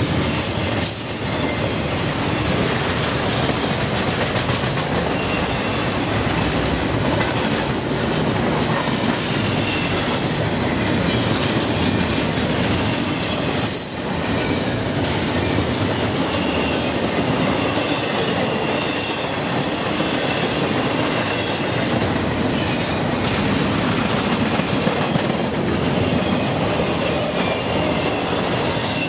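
Double-stack intermodal freight train's well cars rolling past close by: a steady, loud rumble and clatter of steel wheels on rail, with faint high wheel squeals coming and going.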